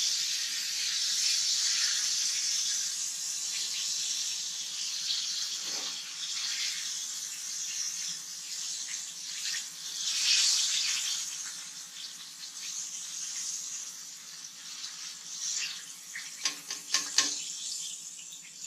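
Floured walleye frying in hot oil in a cast iron skillet: a steady sizzling hiss that slowly fades, with a few sharp clicks near the end.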